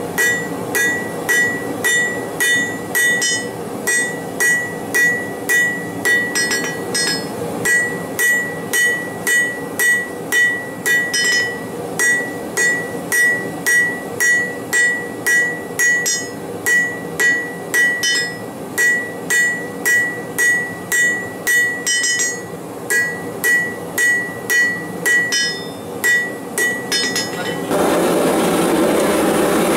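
Hand hammer striking a hot steel bar on an anvil face, about two blows a second, each with a short bright ring. Near the end the hammering stops and a steady rushing noise takes over.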